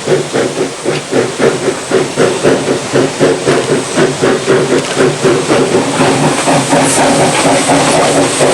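1918 Vulcan 2-6-2 steam locomotive working a train, its exhaust beating in quick, even chuffs over steam hiss. Near the end the beats run together into a steadier rush.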